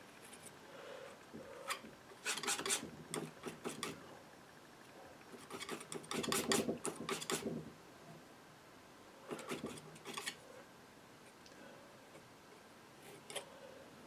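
Painting knife scraping and spreading thick oil paint on a 2 mm MDF panel and on the palette, in several short bursts of scraping strokes, the longest about six seconds in.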